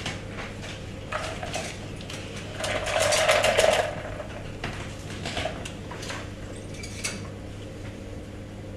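Shaken cocktail double-strained from a stainless steel shaker tin through a fine-mesh strainer into a glass over a large ice cube: liquid pouring and ice clinking against the metal tin and strainer. The pour is loudest around the middle.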